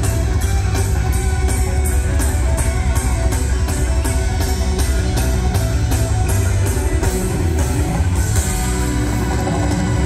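Loud rock music with electric guitar and drums over a concert sound system, with heavy bass and a steady beat of about four hits a second that changes near the end.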